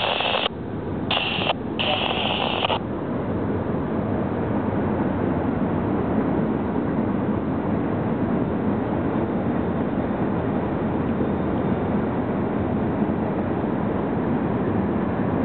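Steady rumble of a long freight train's cars rolling along the rails, heard across a wide river. In the first few seconds a thin hiss cuts in and out several times and then stops.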